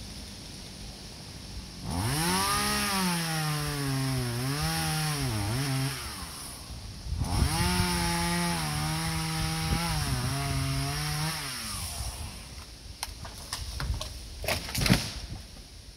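Two-stroke chainsaw making two quick cuts of about four seconds each, the engine's pitch sagging and wavering as the chain bites into the wood, easing off for a moment between them. Near the end comes a short run of sharp cracks, the last one the loudest.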